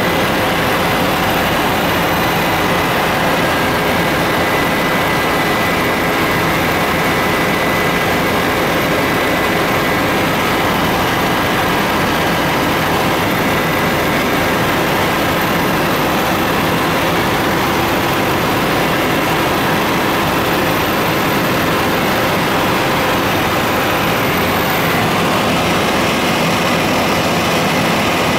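Tour helicopter's turbine engine and rotor heard from inside the cabin: a loud, steady, unbroken drone with thin high whining tones on top.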